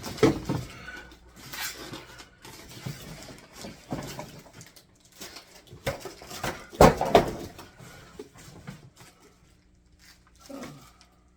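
Handling of a portable air conditioner's packaging during unboxing: irregular rustling with several knocks, the loudest about seven seconds in.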